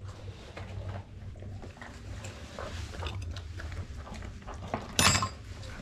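Labrador retriever eating scattered treat crumbs off the floor: small clicks and chewing noises, with one louder sharp clatter about five seconds in.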